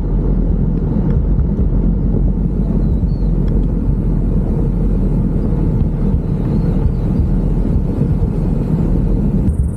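Wind buffeting the microphone of a cyclist riding downhill: a steady, loud, low rumble with no breaks.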